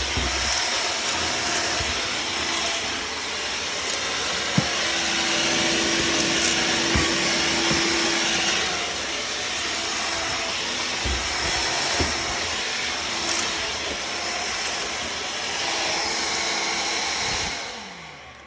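Hoover WindTunnel Air cordless stick vacuum running steadily on a hard floor, sucking up dry cat food, with a few sharp clicks along the way. Near the end the motor is switched off and winds down with a falling whine.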